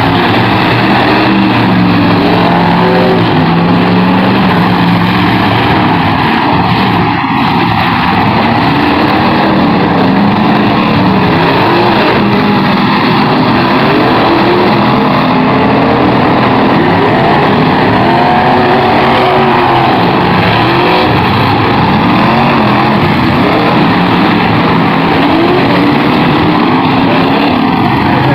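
Several pickup truck engines revving hard at once in a demolition derby, their pitches rising and falling over one another in a loud, continuous din.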